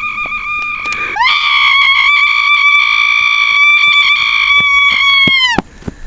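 A person's long, loud, high-pitched scream used as a comic 'call'. One held cry gives way about a second in to a louder, higher one, held steady for over four seconds before it drops in pitch and cuts off.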